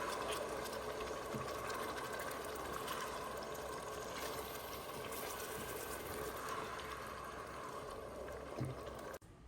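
Steady running water, like a kitchen tap pouring into a pot or bowl, that stops abruptly near the end.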